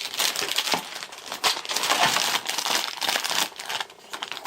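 Dense crinkling and rustling from something being handled by hand, made up of many quick crackles.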